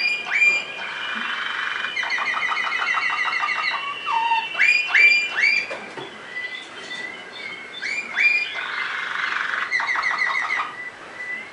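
Waterslager (Malinois) song canary singing: fast rolling trills of repeated notes alternating with clear rising whistles and a long held note.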